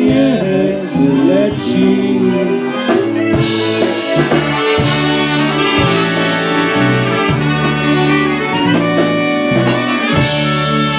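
Live polka band playing, with two trumpets carrying the melody over electric bass guitar and drums.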